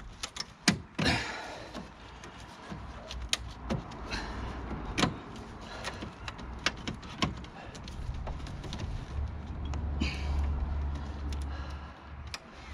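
Plastic trim on a BMW E36 front end clicking and knocking as the pushed-in kidney grilles and bent nose panelling are pushed and pried at by hand. The sharp knocks come irregularly, with a low rumble in the second half.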